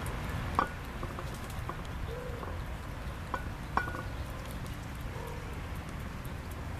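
A plate clinking on concrete as kittens eat from it: two sharp clinks with a brief ring, one about half a second in and one near four seconds, and a few smaller clicks. Under them is a low, steady background rumble.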